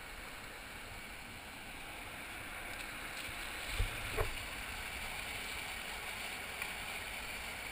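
River water rushing over a weir: a steady hiss of white water that grows a little louder, with two thumps about four seconds in.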